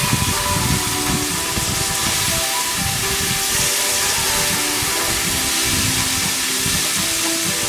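Green beans and garlic sizzling steadily in hot oil in a frying pan as they are stir-fried, with background music playing over it.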